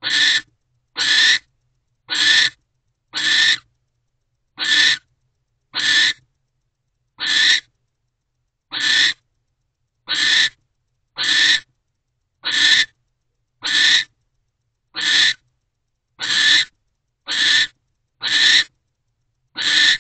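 Barn owl giving a long series of rasping hiss calls, the species' 'snore', each about half a second long and coming roughly once a second.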